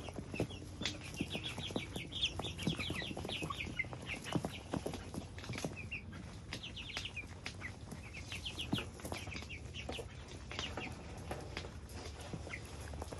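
A flock of young broiler chickens peeping in quick runs of short, high chirps, growing sparser near the end, with scattered light taps throughout.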